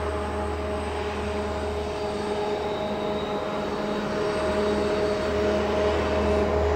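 Diesel locomotive engines droning steadily as the train approaches, growing a little louder near the end.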